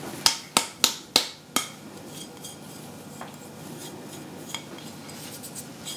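A small ceramic bowl tapped repeatedly to shake out the last of its powder: about six sharp clinks in the first second and a half, then a few faint ticks.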